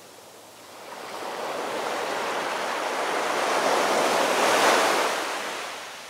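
Sea waves breaking among rocks and washing up a sandy beach: one surge of surf swells from about a second in, is loudest near the end, then falls away.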